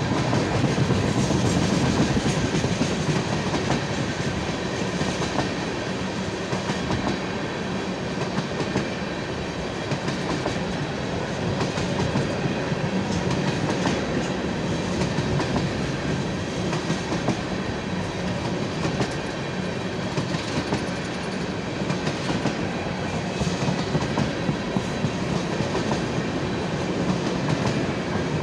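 Freight train of tank cars rolling past close by: a steady rumble and rattle of steel wheels on rail, with regular clicks as wheels cross rail joints, more distinct in the second half.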